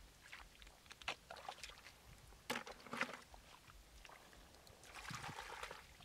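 Hands splashing and rummaging in shallow muddy water as snails are picked up, with scattered sharp clicks of snail shells knocking together, the loudest two about two and a half and three seconds in, and a longer splashy stretch near the end.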